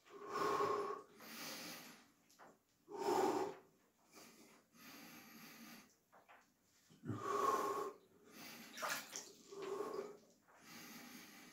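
A man breathing heavily and forcefully through his mouth while immersed in an ice bath, the hard breathing of the body's response to the cold: about eight loud breaths, some blown out with a slight voice.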